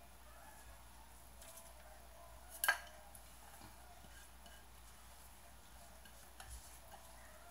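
Grated carrot being scraped by hand from a bowl into a stainless steel pot: faint handling sounds, with one sharp clink of the bowl against the pot about two and a half seconds in.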